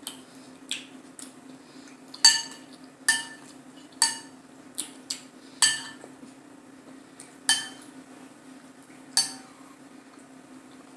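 Metal cutlery clinking against dishes during a meal: about eight sharp, ringing clinks at irregular intervals, over a faint steady low hum.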